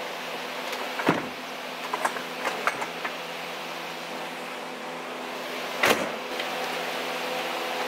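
Steady hum of a giant fan heater running, with knocks and clatter of gear being moved and handled: a loud knock about a second in, a few light clicks around two to three seconds, and another loud knock near six seconds.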